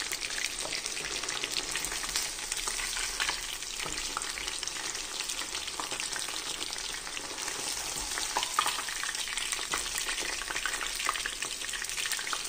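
Paneer cubes deep-frying in hot oil, a steady crackling sizzle, while a steel slotted spoon stirs and lifts the fried pieces out of the kadai.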